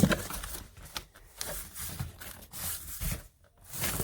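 Cardboard packaging of an aquarium starter kit being opened and its contents handled: irregular scrapes, rustles and light knocks.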